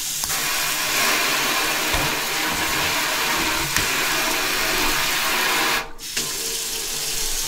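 Water running from a newly installed pull-down kitchen faucet into a stainless-steel sink, partly through the spray head's spray setting: a steady rushing hiss that briefly drops out about six seconds in.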